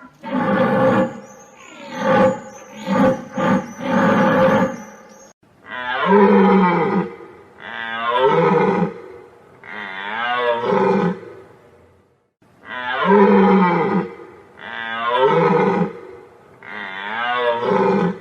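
Deer calling. A dense run of overlapping calls with a thin high whistle above them fills the first five seconds, then six separate long calls follow about every two seconds, each bending in pitch.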